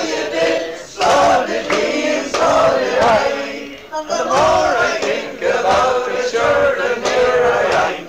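Several men's voices singing together, a pub crowd joining in the chorus of a traditional Irish song.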